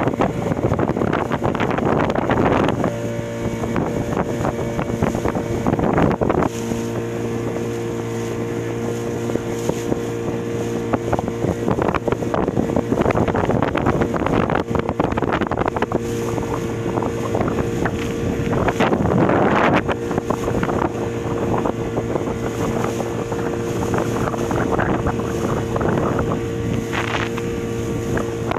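A boat's motor running at a steady speed, with gusts of wind rushing over the microphone in the first few seconds, around a quarter of the way in and again past the middle.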